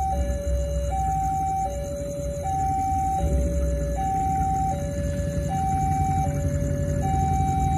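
Railway level-crossing warning alarm sounding its two-tone electronic signal, a higher and a lower tone alternating steadily, each held a bit under a second, which warns that a train is approaching. A low rumble from the oncoming train runs underneath.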